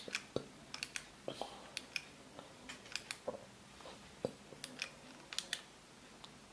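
Light, sharp clicks at irregular intervals, a couple of dozen, with a few duller taps among them: a small push-button switch for add-on LED scooter lights being pressed again and again to cycle the lights' modes.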